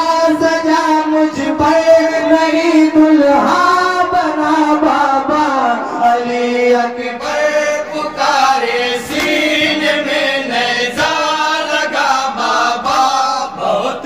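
Male voices chanting a noha, a Muharram lament for Ali Akbar: a lead reciter sings long, drawn-out notes into a microphone, with other men chanting along.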